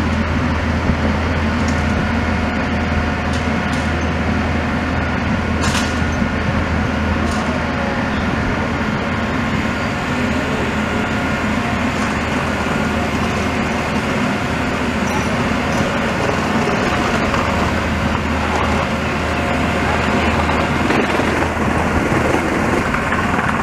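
Heavy diesel plant engine running steadily under load, with a low, even hum and a few faint steady tones above it. A couple of short sharp clicks sound about six and seven seconds in.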